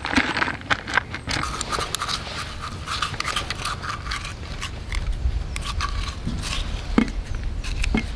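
Close-up food-prep handling: chopped green onions brushed into a stainless steel sierra cup with light rustling and clicks, then chopsticks scraping and tapping inside a glass jar of chili sauce. There are a few sharper clicks near the end.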